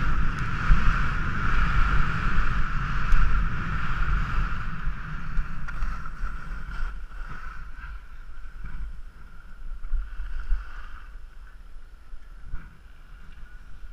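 Wind rushing over the microphone and skis scraping and hissing across packed, groomed snow on a fast downhill run. The sound dies down over the second half as the skier slows.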